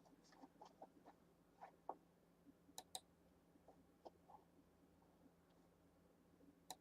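Near silence: faint room tone with a few soft clicks, two close together about three seconds in and another near the end.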